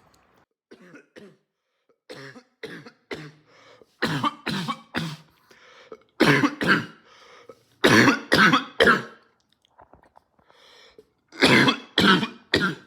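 A man's barking cough in repeated fits of two or three harsh coughs, a few faint ones first, then loud fits about four, six, eight and twelve seconds in.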